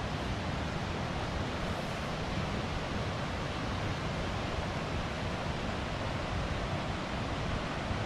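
Steady rushing noise of wind buffeting the microphone, with a fluttering low rumble.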